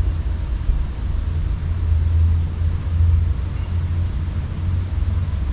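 A steady low rumble, with a quick run of five high chirps near the start and two more about halfway through.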